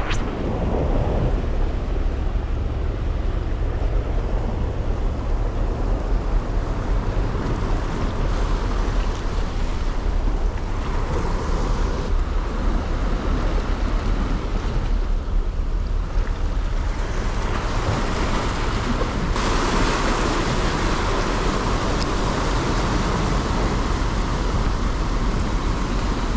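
Sea surf washing against shore rocks, a steady hiss that swells brighter about two-thirds of the way through, with wind buffeting the microphone as a low rumble underneath.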